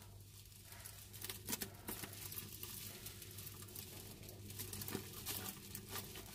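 Kitchen scissors snipping through the plastic wrapping of a bulging kimchi pouch, the plastic crinkling as it is handled: faint, irregular snips and rustles.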